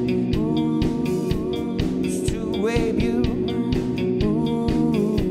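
Live garage rock from a guitar-and-drums duo: electric guitar over a drum kit keeping a steady beat on snare and cymbals.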